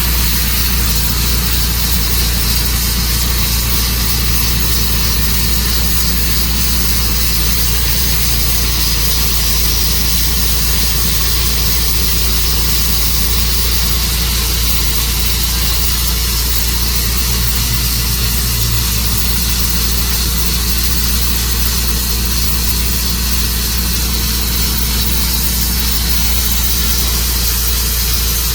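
Tru-Cut sawmill running steadily under power, its engine and saw sawing through a juniper log.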